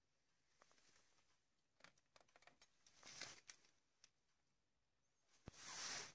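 Faint clicks and taps of cockatiel beaks pecking at a plastic toy crane, with two short breathy bursts, the louder one near the end.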